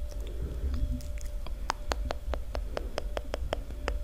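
Close-miked ASMR mouth sounds: sharp wet tongue and lip clicks. They are scattered at first, then run quickly and evenly at about five a second.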